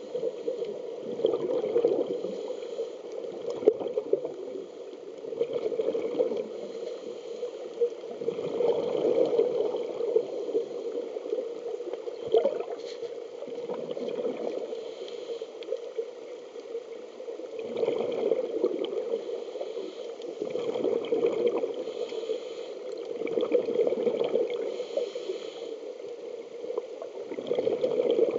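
Underwater scuba breathing through a regulator: bubbling exhalations that swell and fade every three to four seconds.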